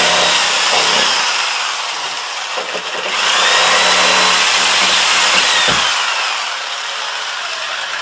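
Reciprocating saw cutting into a sheetrock wall. It runs in two spells, the first ending about a second and a half in and the second from about three seconds in until just past the middle, the motor's whine winding down at the end of each.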